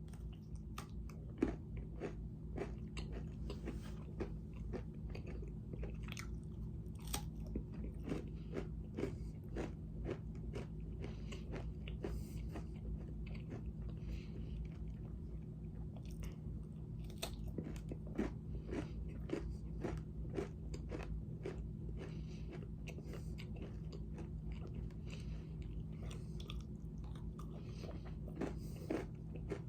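A person chewing a Nature Valley Crunchy Dipped granola square: irregular, crisp crunches and clicks of the hard oat bar breaking between the teeth, fairly faint.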